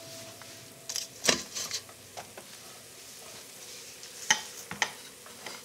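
Olive oil sizzling faintly in a hot frying pan, with a few sharp clicks and clinks of dishes and utensils about a second in and again around four seconds in.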